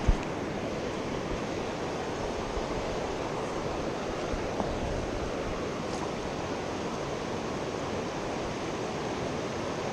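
Steady rush of a fast mountain river flowing over rocks, with one brief knock right at the start.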